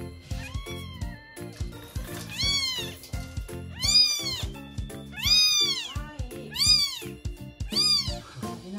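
Very young bottle-fed kittens crying: a series of high, thin mews, each rising then falling in pitch, about one every second and a half, growing louder from about four seconds in. Background music with a steady beat plays under them.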